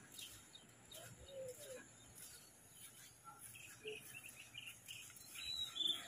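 Faint scattered bird chirps and short calls over a quiet outdoor hiss, with a slightly louder call near the end.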